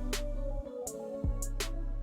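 Background music with a steady beat: kick drum, hi-hat and cymbal strokes over sustained tones.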